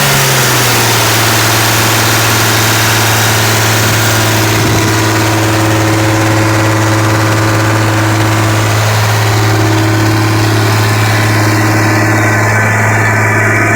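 Engine-driven air compressor running steadily. Its engine speed drops a little in the first second, then holds even.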